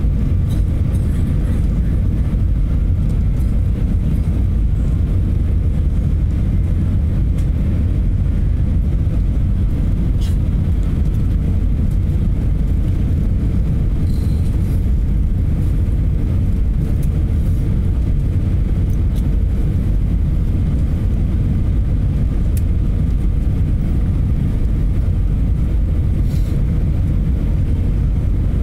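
Steady low rumble inside the cabin of an Airbus A320 on approach with flaps extended: engine and airflow noise, with a faint steady hum above it.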